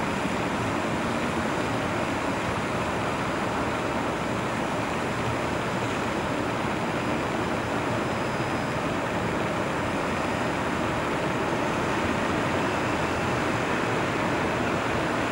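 Steady, even roar of distant city traffic, with no single vehicle standing out.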